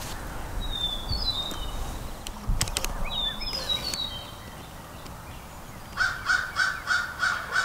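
A crow cawing: a quick, evenly spaced run of caws starting about six seconds in. A couple of short, high songbird chirps come earlier.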